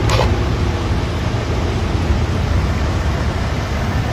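Fast-flowing floodwater rushing through a street as a steady, loud rush.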